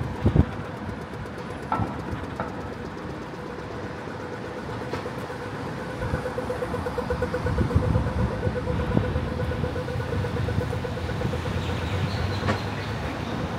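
City street traffic at an intersection: the low rumble of passing vehicles' engines and tyres, louder in the second half. A steady beeping tone runs over it, pulsing rapidly from about six seconds in, typical of a pedestrian crossing signal.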